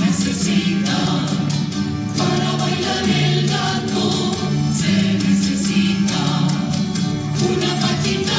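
Music for a gato, the Argentine folk dance: voices singing together over sustained pitched notes, with quick rhythmic strokes throughout.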